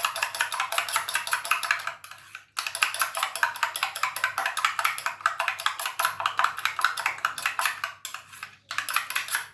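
Rapid clicking of a utensil against a bowl as an egg, sugar and milk mixture is whisked. The clicking breaks off briefly about two seconds in and again near the end.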